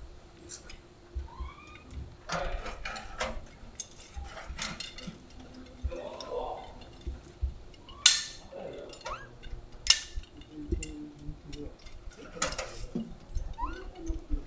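Metal chain and a hanging tin can clinking and knocking as a young Japanese macaque climbs into the can and shifts about inside it, with scattered sharp clanks, the loudest two a couple of seconds apart.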